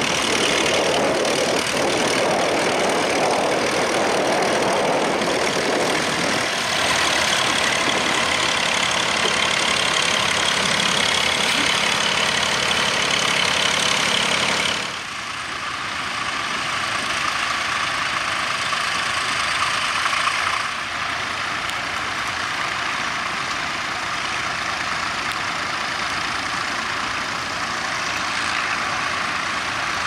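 Vintage tractor engines running steadily while pulling ploughs. The sound shifts abruptly twice, about 15 and 21 seconds in.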